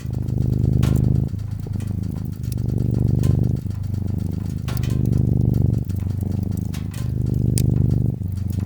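Domestic cat purring steadily, a low rapid rumble that swells and eases with each breath in a cycle of about two seconds. Irregular crackles and pops from a wood fire sound over it.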